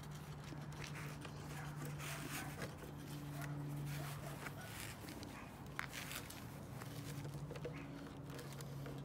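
Handling noises: cloth rustling and small clicks as the velvet sleeve and foam arm padding of an animatronic figure are fitted by hand, over a low steady hum that swells and fades.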